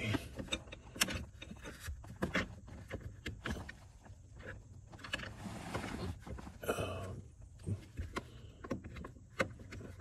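Faint scattered clicks and light metallic rattles of a 10 mm deep socket being worked onto the accelerator pedal's mounting nut, up under the dashboard.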